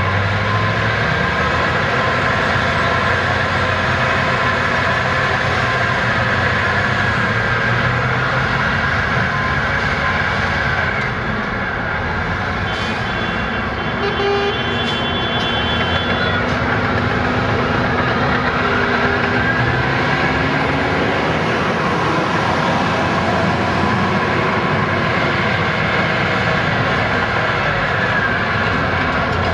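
Heavy diesel earthmoving machines running together: Caterpillar 769 off-highway haul trucks working under load and tipping their dump bodies, with a D7R bulldozer working alongside, as one steady loud engine din. A brief high-pitched tone sounds about halfway through.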